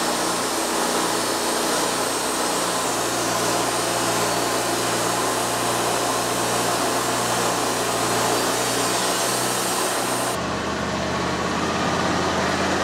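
Wood-Mizer LT40 hydraulic bandsaw mill running, its engine and band blade cutting through a monkey puzzle log with a steady hiss. About ten seconds in the sound changes abruptly: the high hiss drops away and the engine note settles lower.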